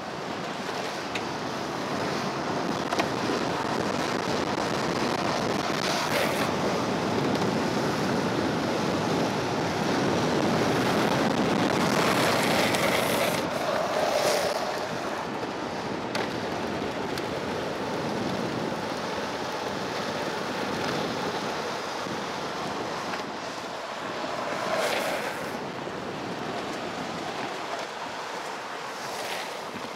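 Longboard wheels rolling fast on asphalt, a steady rumble mixed with wind on the microphone. Several short hissing wheel slides stand out, the longest about twelve to fourteen seconds in as the rider slides hand-down around a corner.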